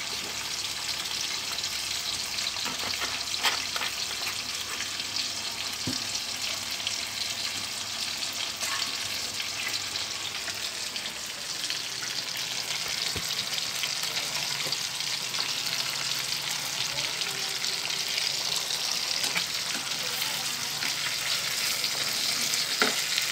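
Pomfret braising in a pan of seasoned liquid on a gas stove, sizzling and bubbling in a steady hiss. A few light knocks sound near the end as the fish is turned with chopsticks.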